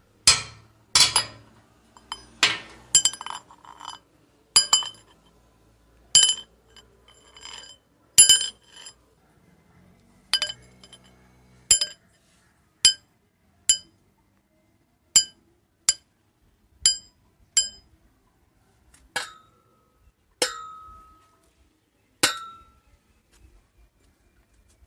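Metal rods struck against each other in a series of sharp, ringing clinks, about one a second, each ringing briefly at several high pitches. Three strikes near the end carry a lower ring that hangs on a moment longer.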